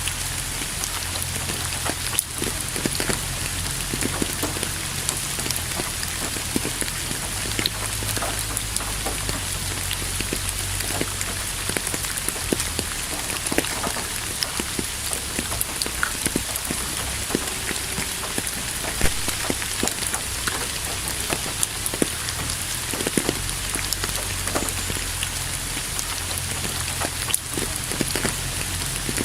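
Steady rain falling on a surface, with many individual drops ticking close by over a constant hiss and a low rumble underneath.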